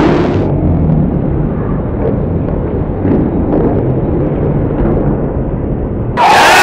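Muffled, rumbling crowd noise in a hockey rink, with a few faint knocks. About six seconds in, it gives way to louder, brighter crowd cheering.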